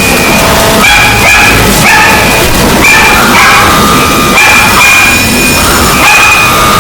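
Heavily distorted, very loud alarm-clock sound effect: short high tones stepping up and down in pitch, over a thick noise.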